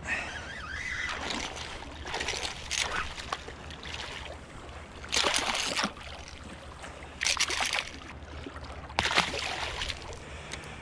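Small striped bass thrashing and splashing at the surface as it is landed in shallow surf: several short bursts of splashing, the loudest from about five seconds in, over a low wash of water.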